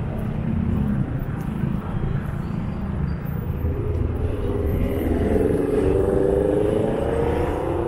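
City bus engine running close by over a low traffic rumble. From about halfway its note climbs steadily as the bus accelerates away.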